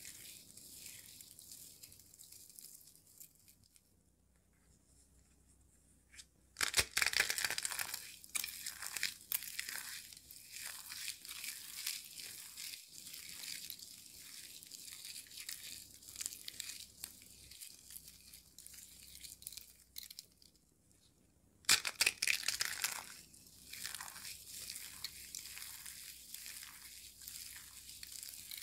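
Foil tinsel, confetti and dry soap flakes crinkling and crunching as they are squeezed and rubbed between hands, a crackly rustle. It grows louder twice, about a quarter of the way in and again about three quarters through, each time after a quieter pause.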